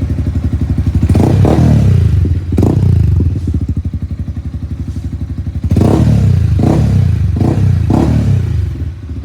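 Yamaha R15M single-cylinder engine, bored out to 183 cc, running through an Akrapovic muffler. It idles steadily and is blipped up several times, in two groups, each rev rising and dropping straight back to idle. The revs are kept light because the engine is still being broken in.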